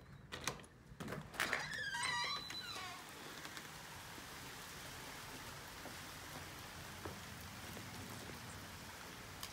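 A door knob turning and the latch clicking as a door is pulled open, followed by a brief high squeal with a wavering pitch. A steady hiss of outdoor air follows.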